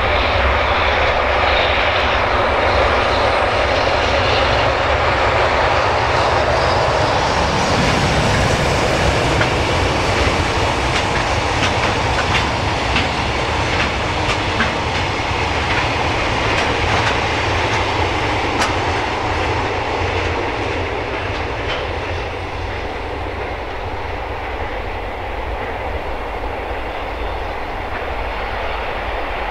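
A freight train of Taki 43000 gasoline tank wagons, hauled by an EH500 electric locomotive, rolling past. There is a steady rumble of steel wheels on rail, with repeated clacks as the wheels cross rail joints, easing slightly near the end as the train moves away.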